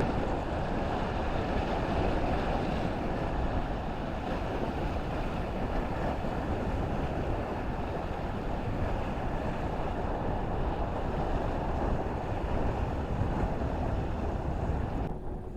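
Wind buffeting the microphone in a steady low rumble, over the wash of sea waves at the shore. It drops away suddenly near the end.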